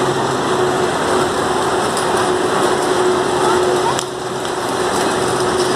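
Steady din of an indoor bumper-car rink: a constant hum over dense background noise with voices mixed in, and a brief click about four seconds in.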